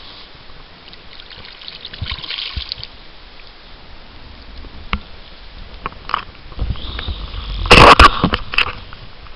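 Water trickling and lapping at a bank, with a few knocks and one loud rustling burst about eight seconds in, as the hand-held camera is moved.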